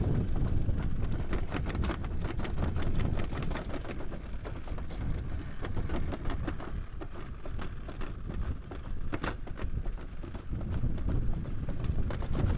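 Summer toboggan sled running down a stainless-steel trough: a steady low rumble with frequent rattling clicks, easing off somewhat in the middle and picking up again near the end.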